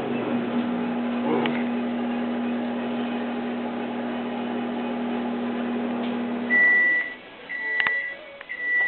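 Microwave oven running with a steady hum that stops about six and a half seconds in, followed by three high beeps: the end-of-cycle signal.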